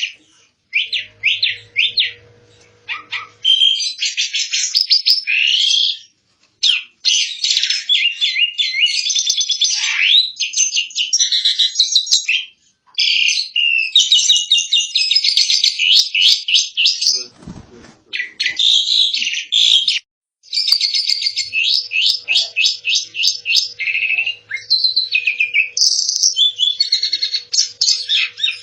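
Asian pied starling singing: long runs of fast, chattering and whistled notes, broken by brief pauses.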